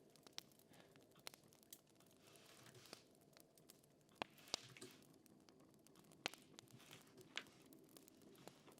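Faint crackling fire, with sharp pops at irregular intervals and a few soft swells of hiss.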